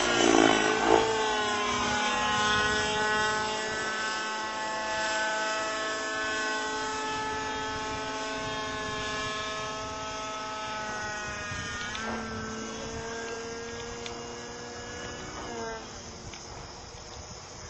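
Robbe Millenium 2 radio-controlled helicopter in flight, its engine and rotor note rising sharply at the start, then holding and sagging slowly. The pitch shifts suddenly about twelve seconds in and again a few seconds later, and the sound grows quieter toward the end.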